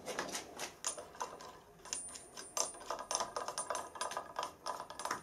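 Quick irregular metallic clicks and clinks of steel clamping parts being set and shifted on a brake disc lying on a milling machine table, with a faint high ring hanging after some of the taps.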